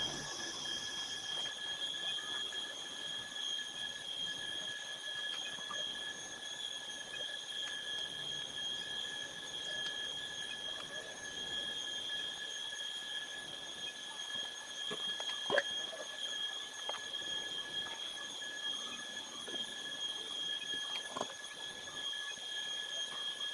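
A steady high-pitched whine of several held tones over a faint hiss, with a few faint ticks.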